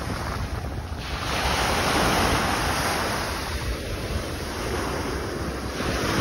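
Sea waves breaking and washing up the beach, with wind rumbling on the microphone. The surf swells louder about a second in, then eases.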